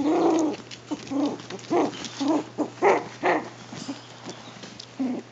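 Puppies yapping in play: a quick run of short, pitched yaps and barks, the first the loudest.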